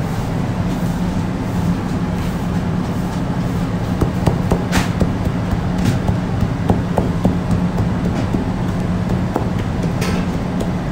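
Steady low hum of bakery machinery, with scattered light taps and a few sharper knocks as dough is worked by hand on the table.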